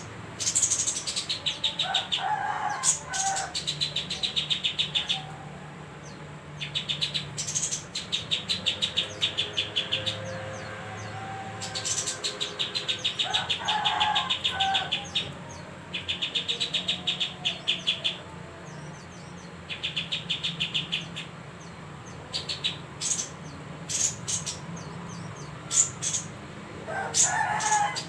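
Kapas tembak songbird singing in repeated bouts of rapid, high ticking trills, each about a second or two long. A few lower, fuller chirps break in now and then.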